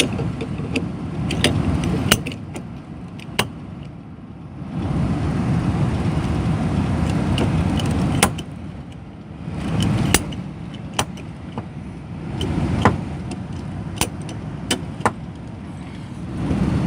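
A PVC pipe cutter working through a brittle PVC condensate drain pipe, giving a dozen or so sharp, irregularly spaced clicks, over stretches of low rustling and handling noise.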